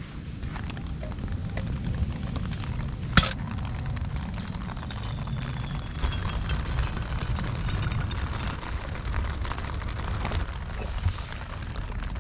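Handling of camp cooking gear while making filter coffee: rustling and small clatters over a steady low rumble, with a single sharp click about three seconds in.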